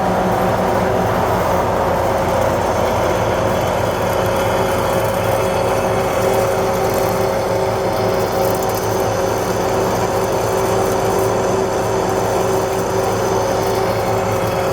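Swift 16V5 centre lathe running steadily under power, a constant machine hum with several steady whining tones, while the powered top-slide feed takes a light taper cut.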